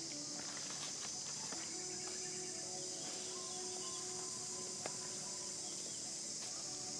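Steady, high-pitched drone of an insect chorus, with a few faint clicks.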